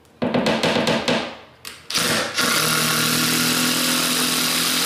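Cordless impact driver sinking a long screw at an angle (toe screw) through a board into a wooden joist: a burst of rapid hammering, a brief pause and a short burst, then a steady run of about two and a half seconds that cuts off near the end.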